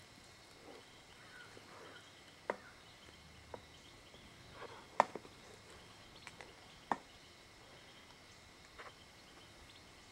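Quiet autumn woodland ambience: faint insect chirring with a few scattered sharp clicks and snaps, the loudest about five seconds in, and some soft rustling.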